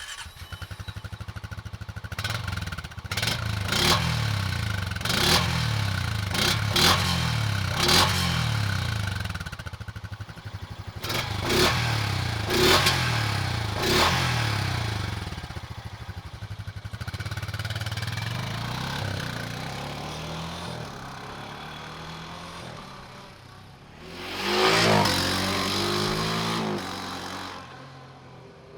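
Honda Pioneer 500's single-cylinder engine idling and being blipped: seven or so short revs that each fall back quickly, then one longer rev near the end before it settles to idle. Exhaust sound.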